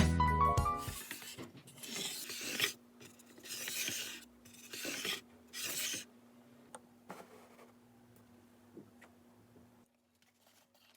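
Rubbing strokes of an abrasive on wood, four scraping passes in a row, followed by a few faint clicks and taps.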